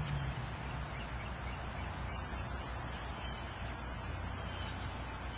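Steady outdoor background noise: an even hiss with a low hum underneath and no distinct events.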